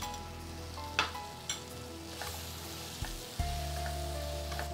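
Tomato and onion masala sizzling in a frying pan while a silicone spatula stirs it, with a few sharp clicks of the spatula against the pan.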